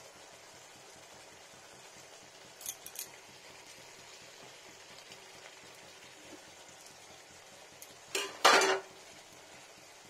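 A pan of fish curry simmering with a soft, steady sizzle, while steel kitchenware clinks against the pan: two light clinks about three seconds in and a loud metal clatter near the end.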